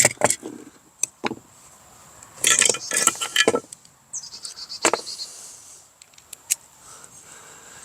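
Small metal parts and a socket wrench clinking and rattling as the rocker-arm nuts come off a small four-stroke string trimmer engine, in scattered clicks with a cluster of jangling about two and a half seconds in.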